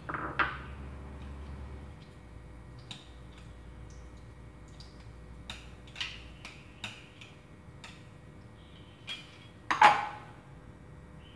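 A metal spoon tapping and scraping in a plastic strainer, pressing minced lemongrass and garlic to squeeze out their juice: a series of light clicks, then a louder clatter near the end as the strainer and spoon are set down in a bowl.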